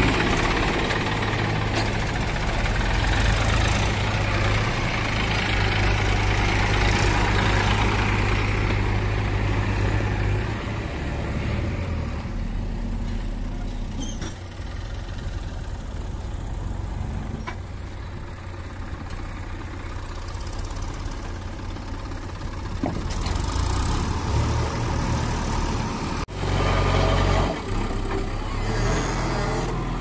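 Diesel engines of a JCB backhoe loader and a Massey Ferguson tractor pulling a loaded soil trolley, running steadily. The engine sound drops lower and quieter about ten seconds in and swells again near the end.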